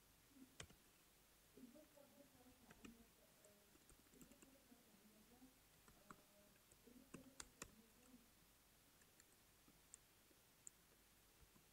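Faint, scattered clicks of computer keys while code is typed, against near silence. The clicks are irregular: a few come singly, and there is a quick cluster a little past the middle.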